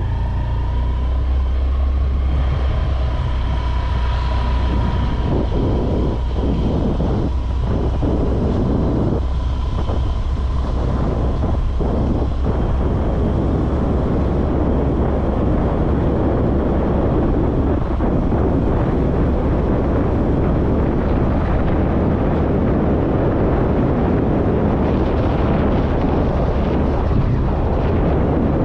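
Road vehicle under way: a steady low engine drone with a whine that climbs in pitch in the first second, under a dense rush of road and wind noise that builds and holds.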